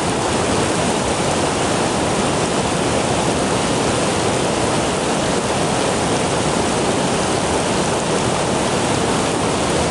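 Fast-flowing stream water rushing, a loud, steady, even roar with no breaks.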